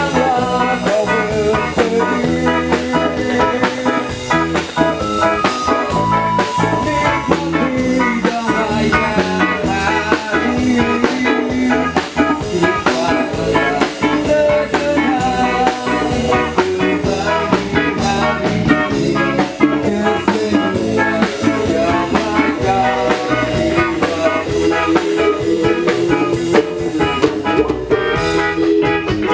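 A rock band playing live, loud and steady: electric guitars, keyboard and drums.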